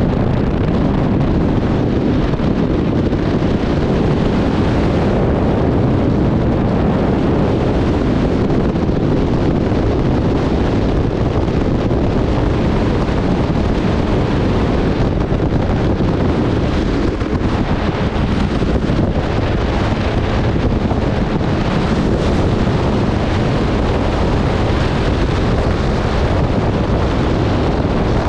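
Jet ski running steadily under way, its engine drone mixed with heavy wind rushing over the microphone and water spray at the hull.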